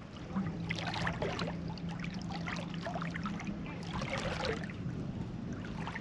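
Water sloshing and trickling along a sailboat's hull, over a low steady hum.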